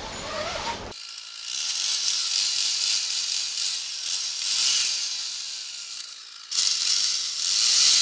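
Chainsaw cutting through a section of beech trunk, heard through a helmet-mounted camera as a steady rattling buzz that dips briefly before resuming.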